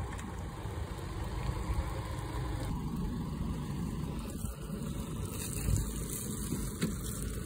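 Chevy Colorado pickup's engine running low and steady as the truck rolls slowly. Near the end, water from the flooded bed splashes out over the tailgate onto the road.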